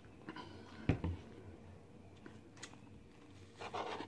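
Quiet handling sounds: a single dull knock about a second in, as of a plastic drink bottle set down on a table, then a short crackle near the end as the flaky pastry crust of a patty is pulled apart by hand.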